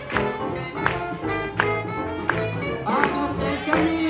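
Swing jazz band playing an up-tempo tune, with a steady beat accented about every three-quarters of a second.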